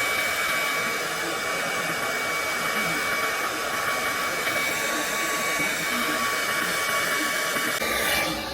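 Handheld hair dryer running steadily with a high whine, blowing on the glued tracks of a quick weave to set the bonding glue before the next layer.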